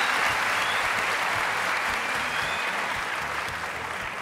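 Studio audience applauding, the clapping dying down near the end.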